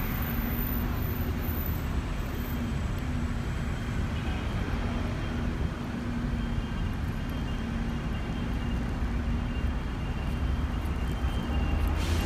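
Steady city street traffic noise: a continuous low rumble with a faint steady hum.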